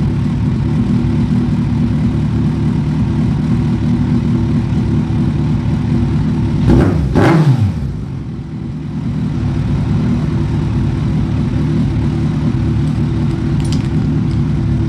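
Kawasaki Z1000's inline-four engine idling, with one brief throttle blip about seven seconds in, its pitch rising and falling back to idle.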